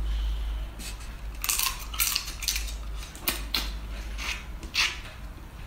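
Shell of a spiny crab's legs cracking and snapping under the fingers: a string of irregular sharp, crisp clicks and crackles, the loudest about five seconds in, as the leg meat is pulled out and eaten.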